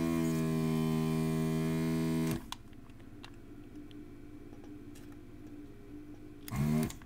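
Vacuum desoldering gun's built-in pump buzzing steadily for about two and a half seconds while it sucks molten solder off the pins of a soldered-in bulb on a circuit board. It cuts off sharply, and a second short buzz comes near the end.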